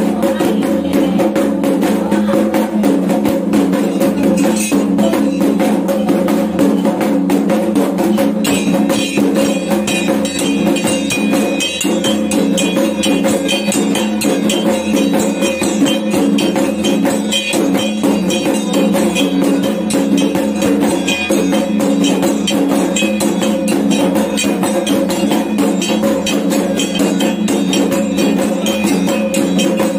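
Kendang drums beaten in a rapid, unbroken rhythm as accompaniment to a Dayak belian healing ritual. A higher ringing layer joins about nine seconds in.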